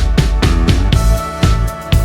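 Background music with a steady drum beat and a short drum fill about half a second in.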